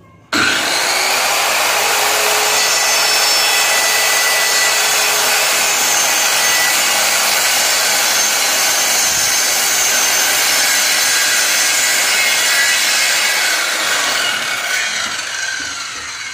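Electric circular saw making a 45-degree bevel cut through a small piece of wood. It starts abruptly, runs steadily and loudly through the cut, then winds down near the end.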